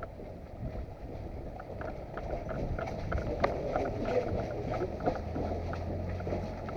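Steady rustling noise with many small scattered clicks and one sharper click about three and a half seconds in, as from movement through brush with gear and wind on the microphone.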